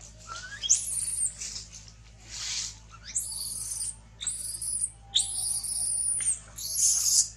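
Baby macaque screaming in distress: a run of about six shrill, high-pitched cries, each rising quickly and then held, with short breaks between them.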